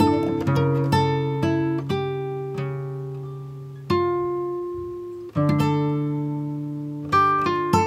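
Background music played on a plucked acoustic guitar: picked notes and chords that ring and fade, with a longer held chord about four seconds in and another about five and a half seconds in.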